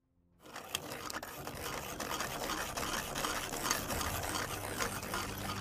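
Intro sound effect: a dense mechanical rattling and clicking texture that fades in over the first half second and holds steady, leading into music.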